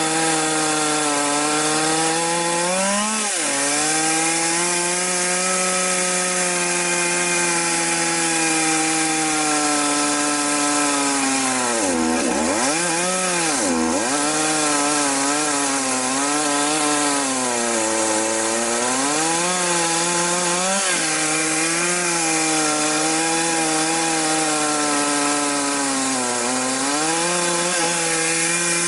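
Chainsaw running under load as it rip-cuts a log lengthwise into planks. The engine pitch wavers throughout and drops sharply about three seconds in and twice more around twelve to fourteen seconds in, as the saw bogs in the cut before picking back up.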